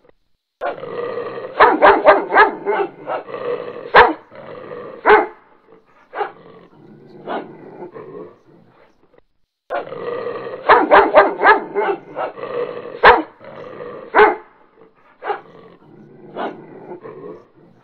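A dog growling and barking in loud bursts, with short pauses between clusters. The same passage of barking and growling repeats itself about nine seconds later, as in a looped recording.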